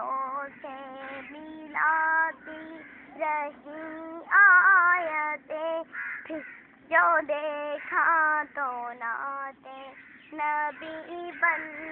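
A young girl singing unaccompanied, in short held phrases with gliding pitch and brief pauses between them.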